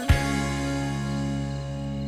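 Background music: a deep hit right at the start, then a held chord that rings on and slowly fades.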